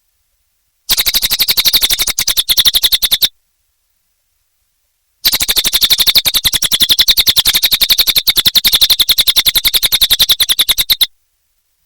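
Cililin songbird singing a rapid chattering trill of quick, evenly repeated high notes, in two bouts: a short one about a second in and a longer one from about five seconds in, with silence between.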